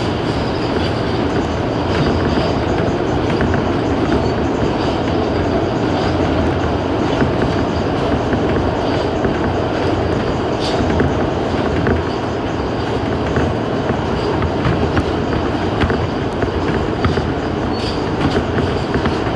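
New York City Subway A express train running steadily at speed: a continuous rumble with scattered clicks of the wheels over rail joints and a faint high wheel squeal.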